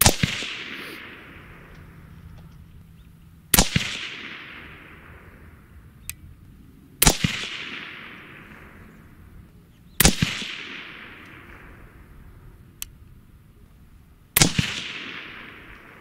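Five shots from a suppressed AR-15 in .223 Wylde, fired slowly about three to four seconds apart, each sharp report trailing off over a second or so.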